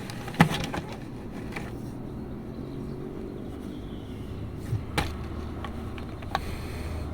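Quiet eating sounds: a few scattered mouth clicks over a low steady hum.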